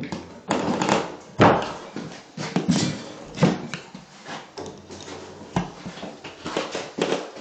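A series of irregular knocks and clunks, the loudest about a second and a half in, as nails are driven into wall anchors for wire closet shelving with a hand driver.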